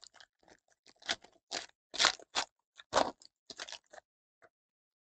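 Foil trading-card pack crinkling and tearing open in the hands, in a string of short crackly bursts, the loudest about two and three seconds in. It stops after about four seconds.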